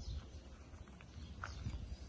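A few soft footsteps on dirt and grass over a low steady rumble.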